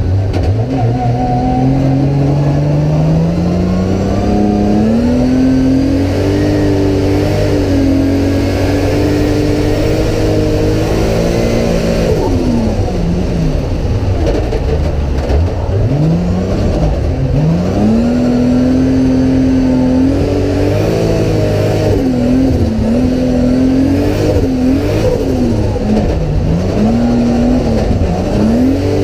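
Toyota GT86 drift car's engine heard from inside the cabin, revving hard: the pitch climbs over the first several seconds and holds high, drops away sharply twice around the middle, then climbs again and bounces up and down near the end as the throttle is worked.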